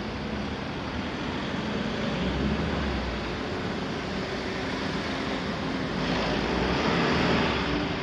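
Road traffic running past a railway level crossing, a steady rumble of tyres and engines, with one vehicle passing louder near the end. The crossing bell is not ringing.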